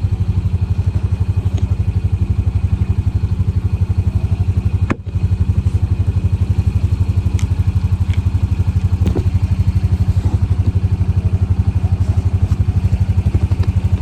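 Honda Pioneer 700 side-by-side's single-cylinder engine running steadily, close to the phone mounted on the machine, with a brief dropout about five seconds in.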